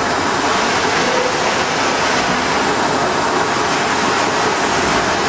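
Large-format UV flatbed printer running, making a steady, even machine noise as its print carriage with the UV curing lamp passes over the bed.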